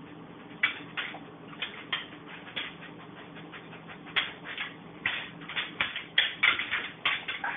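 A dog sniffing and its claws clicking and scrabbling on a hardwood floor and cabinet as it hunts for food by scent. It comes as short, sharp strokes, scattered at first and quicker and denser from about five seconds in.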